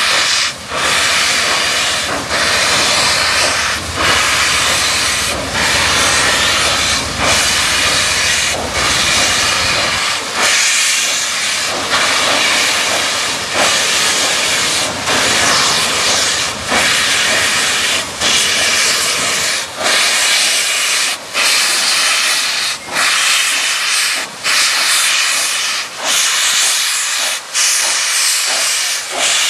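Two steam locomotives, Grand Canyon Railway 2-8-2 No. 4960 and Santa Fe 4-8-4 No. 3751, working slowly past with loud, steady steam hissing from open cylinder cocks, broken by short regular dips about every second and a half. A low rumble underneath fades out about ten seconds in.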